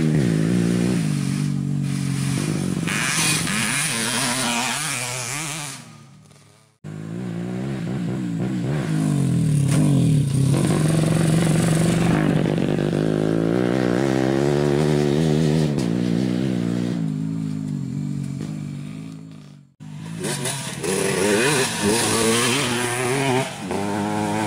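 Dirt-bike engines revving on a grasstrack motocross circuit, rising and falling in pitch as the bikes accelerate and pass. The sound dies away twice and comes back abruptly.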